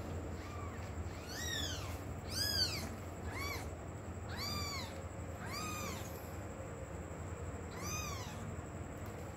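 A cat meowing: about seven short, high meows, each rising and then falling in pitch, spread over several seconds.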